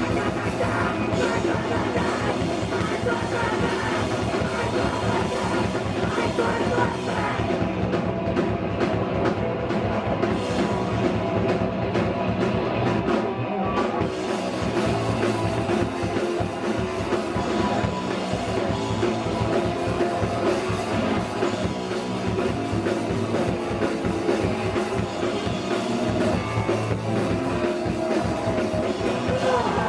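Hardcore punk band playing live: a loud, steady wall of drum kit and electric guitar.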